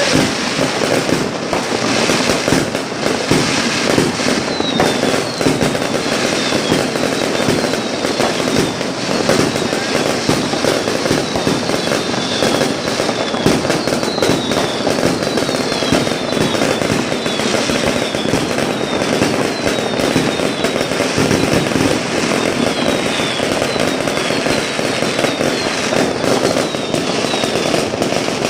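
A dense, unbroken barrage of New Year fireworks and firecrackers: many overlapping bangs and crackles with no pause. From a few seconds in, short high falling whistles sound again and again over the bangs.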